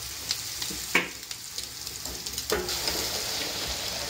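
Hot oil in a deep fat fryer sizzling steadily around breadcrumbed eggs in a wire basket, with two sharp knocks about one and two and a half seconds in. The sizzling grows brighter after the second knock.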